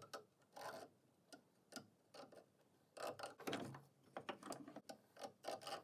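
Faint, irregular scratching and ticking of a spring dividers' steel point scribing a circle into the end grain of a square wooden blank, followed by the blank being handled and turned over on the workbench.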